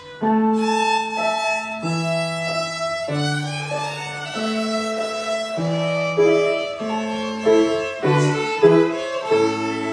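Two violins bowing a melody of long held notes, with piano accompaniment underneath.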